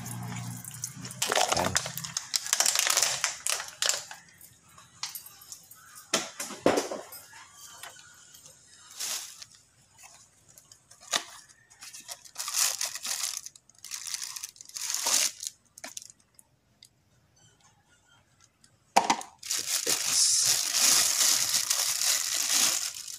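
Cardboard packaging being torn open and plastic wrap crinkling and rustling in irregular bursts as a new timing-belt tensioner bearing is unwrapped. The longest, loudest crinkling comes near the end. At the very start, water poured from a plastic bottle splashes onto the engine.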